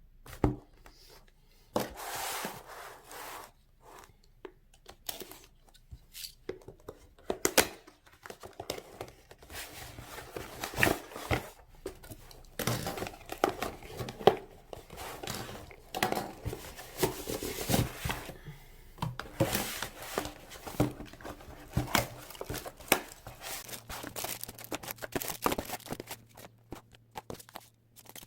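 Packaging being handled and opened up close: tearing, crinkling and rustling of wrap, with many sharp clicks and taps at irregular intervals.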